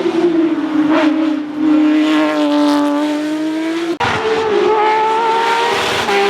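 Race car engine at high revs on a hill-climb run, its note held high and sagging slowly, then cut sharply about four seconds in before pulling again.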